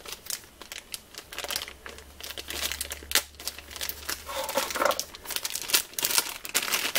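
Thin clear plastic bag crinkling and crackling in the hands as it is handled and pulled open to get at a pair of multimeter test leads, in irregular crackles.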